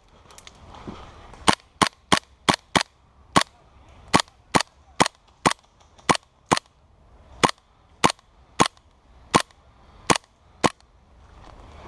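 Gas blowback airsoft gun firing single shots in semi-auto, about twenty sharp cracks at an uneven pace of roughly two a second, starting a second and a half in and stopping near the end.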